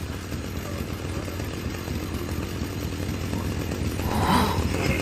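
Chainsaw engine sound effect running with a low rumble, getting steadily louder.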